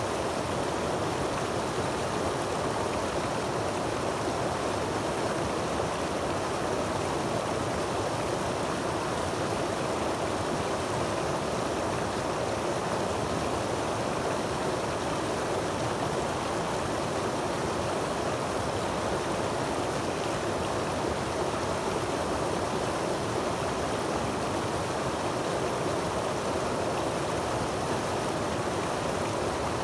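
Creek water tumbling over rocks in a small cascade into a pool: a steady, unbroken rush.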